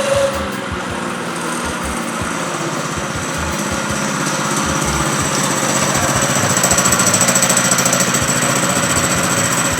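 6.5 hp single-cylinder small engine of a go-kart running with a fast, even rhythm. It gets louder over a few seconds midway, then holds steady.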